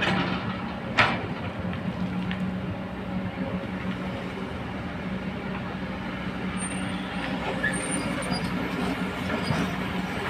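Diesel engines and hydraulics of two working hydraulic excavators, a Komatsu and a Kobelco, running steadily as they dig and swing. A single sharp knock comes about a second in.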